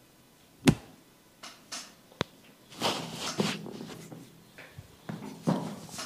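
Hands-on head massage: one sharp, loud smack or pop about a second in, a smaller click a little later, then stretches of hands rubbing and patting on hair and skin.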